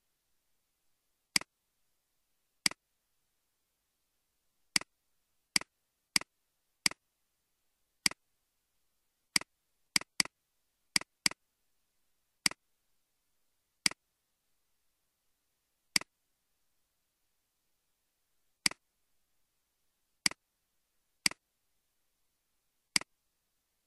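Computer mouse clicks: about nineteen short, sharp single clicks at irregular intervals, a few in quick pairs, with dead silence between them.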